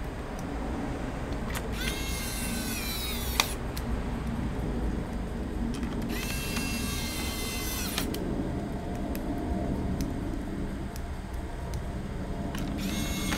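Small electric screwdriver whirring in short runs, twice for about a second and a half each and again near the end, as it backs out the laptop's case screws. A sharp click comes as the first run stops.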